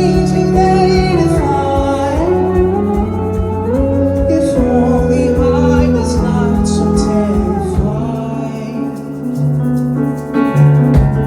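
A live band plays a held, gliding sung line over keyboard, bass and a steady drum beat.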